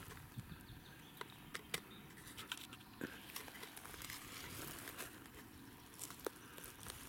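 Faint footsteps on a dry pine-needle forest floor, with scattered small crackles and snaps of twigs underfoot.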